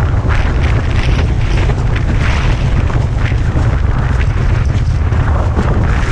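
Strong wind buffeting the microphone in a constant low rumble, over the rushing hiss of a windsurf board sailing fast across choppy water, with irregular surges as the board hits the chop and throws spray.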